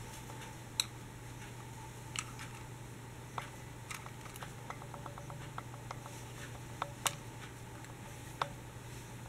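Scattered sharp clicks and small ticks of a diecast toy bus being handled and turned over in the hands, with a quick run of light ticks in the middle, over a steady low hum.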